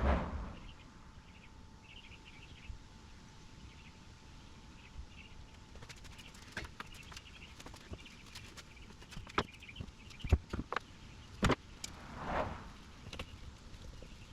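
Scattered sharp metal clanks and knocks of tools and parts during removal of a Sea-Doo GTX 951 engine, with two short swelling rushes of noise at the start and about twelve seconds in. Birds chirp faintly in the background.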